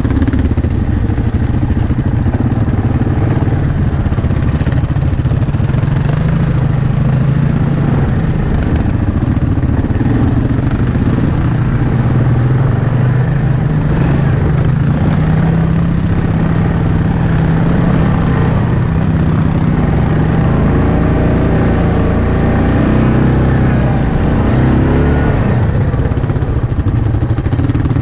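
ATV engine running steadily at low trail speed, its pitch rising and falling a little with the throttle.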